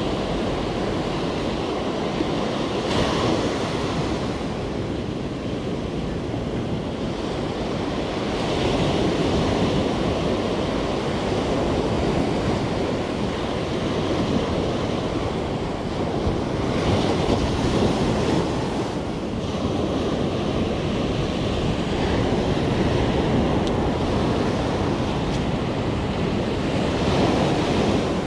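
Surf breaking on a sandy beach, a continuous wash with a wave crashing in every several seconds. Wind is buffeting the microphone.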